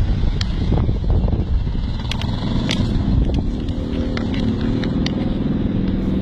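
A motor vehicle's engine running close by, its hum steadying about four seconds in, over a low rumble with scattered sharp clicks.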